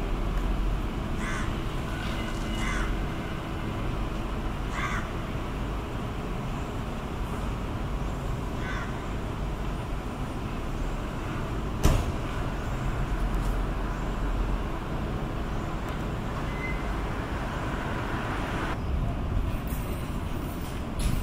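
Four short, harsh bird calls, caws, over a steady low rumble of street and wind noise, with a single sharp click near the middle.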